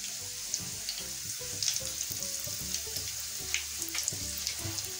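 Breadcrumb-coated fish nuggets shallow-frying in oil over low heat, sizzling steadily with scattered small crackles and pops.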